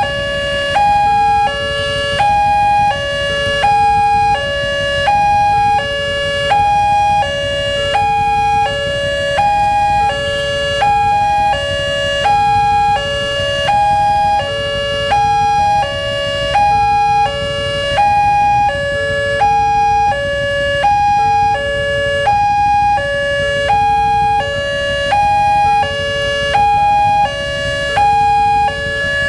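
Indonesian railway level-crossing alarm sounding with the barriers down, warning of an approaching train: an electronic tone sequence stepping between a few pitches, repeating about every two seconds. The low rumble of road traffic runs underneath.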